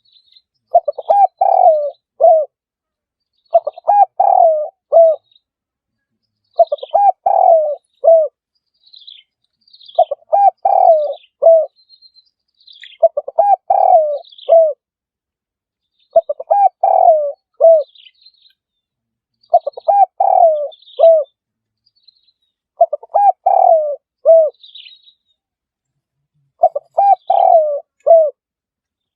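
Spotted dove cooing: a repeated phrase of a few low, rolling coo notes ending on a separate last note, given nine times about every three seconds. Faint high chirps of small birds sound between the phrases.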